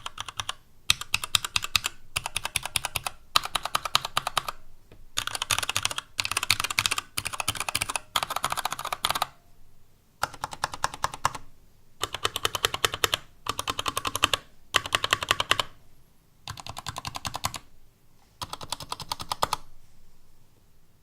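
TADA68 mechanical keyboard with Gateron Brown switches, stainless steel plate and PBT keycaps, its keys tested one at a time: about a dozen quick runs of repeated keystrokes with short pauses between. The plastic case sounds hollow, which the owner puts down to the empty space inside it, and there is some desk noise under the strokes.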